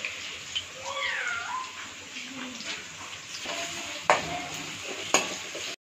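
Sliced onions sizzling in oil in an aluminium karahi, turned with a slotted steel spoon that knocks sharply against the pan twice in the second half. About a second in, a short pitched call glides up and then down over the frying.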